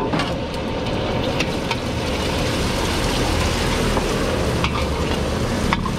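An egg frying in hot oil in a wok, a steady sizzle over the rush of the gas wok burner. The metal ladle gives a few light clicks against the wok as it stirs.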